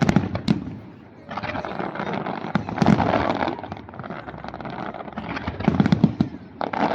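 Large aerial fireworks display: shells bursting with sharp bangs, followed by waves of dense crackling that swell and fade twice.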